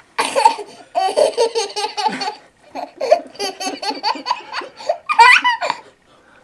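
A baby laughing hysterically in quick, repeated bursts of giggles, breaking into a high-pitched squeal about five seconds in.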